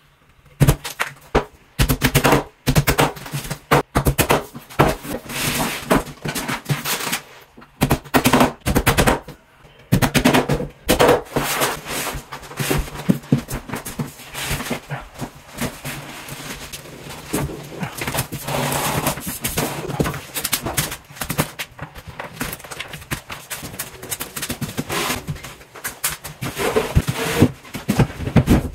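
Hammer driving small nails into the thin fibreboard back panel of an IKEA PAX wardrobe carcass: quick runs of sharp taps, over and over, with a few short pauses.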